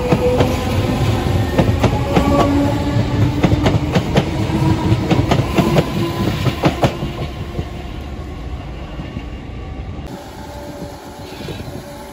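Merseyrail Class 507 electric multiple unit pulling past the platform: a slowly rising motor whine over a rapid clatter of wheels on rail joints, fading as it draws away. The sound drops off abruptly near the end.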